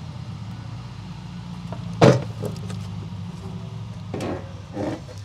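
Knocks and rattles as the inner liner and panels of a Harley-Davidson tour pak are pulled loose, the loudest about two seconds in. They sit over a steady low machine hum.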